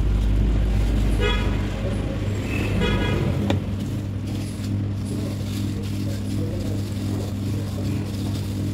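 Steady low mechanical hum, with two short horn toots about a second and a half apart and a single click soon after.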